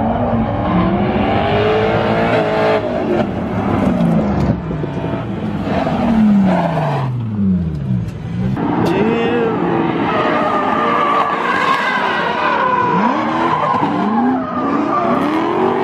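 Drifting cars: engines revving up and dropping back again and again under a haze of skidding tyres. A long high tyre squeal is held through the latter half.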